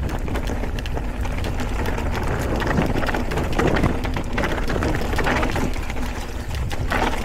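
Mountain bike riding along a rough trail: steady tyre noise with many small rattles and clicks, and wind rumbling on the microphone.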